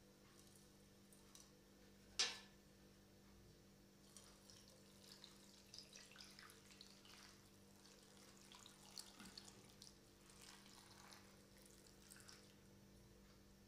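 A single sharp click about two seconds in, then faint, irregular trickling and splashing of water poured from a plastic measuring jug over cauliflower florets in a pot, from about four seconds in until near the end.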